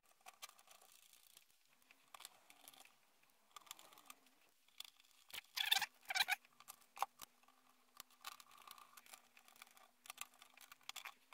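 Faint small clicks and scrapes of a screwdriver and fingers working a screw into a threaded insert and handling the Tandy TRS-80 Model 100's circuit board and plastic case, with two louder knocks a little before the middle. A faint steady hum sits under the second half.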